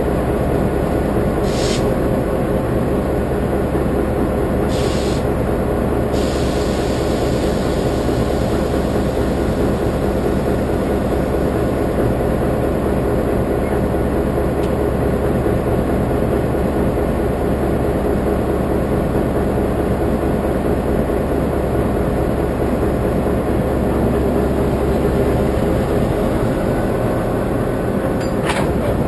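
Taiwan Railways diesel locomotive idling close by: a loud, steady engine hum. A few short hisses break in, three in the first six seconds and one near the end.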